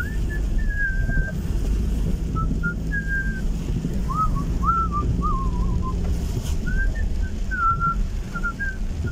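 A person whistling a melody in short gliding phrases with brief pauses, over the steady low rumble of a car in motion.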